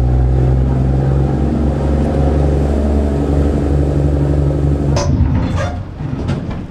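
Passenger boat's engine running steadily under way, a loud low hum over the rush of its churning wake. About five seconds in it gives way to a few sharp knocks and clacks.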